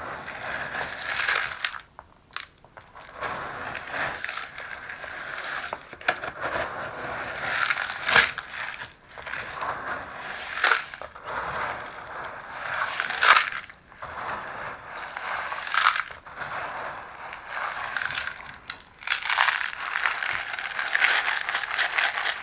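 Wet aquarium gravel crunching and rattling as it is scooped out of water with a sieve, in repeated scoops.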